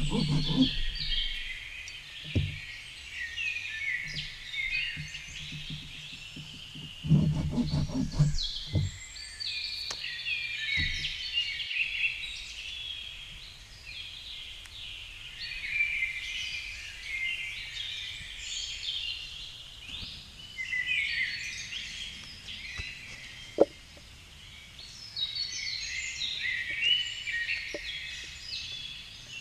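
Several songbirds singing at once in woodland, overlapping chirps and trills. A couple of brief low rumbles come near the start and about seven seconds in, and there is a sharp click later on.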